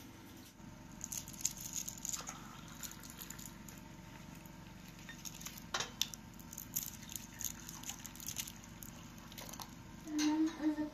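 Tea poured from a teapot into glass tea cups: a thin stream trickling and splashing into the glass, with small clinks of glassware on a metal tray.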